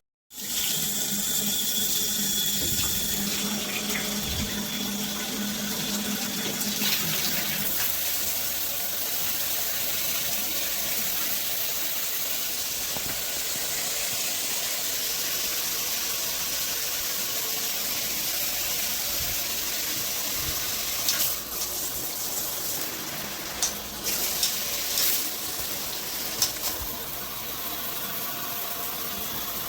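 Water running steadily from a shower head, with water escaping onto the floor in the way the owner shows it leaking. A few short knocks come about two-thirds of the way through.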